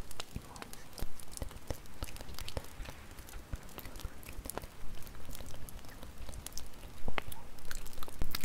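Crackling wood fire: irregular sharp pops and snaps over a soft hiss, with one louder pop about seven seconds in.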